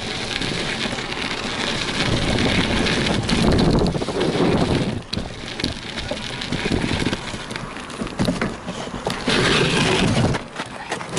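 Wind rushing over an action camera's microphone together with a BMX bike's tyres rolling over a packed-dirt track, a steady noise that swells and eases; it drops away sharply about ten seconds in.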